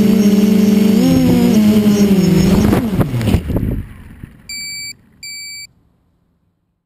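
RDX4 quadcopter's four brushless motors and propellers whining at a steady pitch, wavering up and down briefly. The quad comes down into the grass with a couple of knocks while the motors spin down and stop. About a second later come two short electronic beeps.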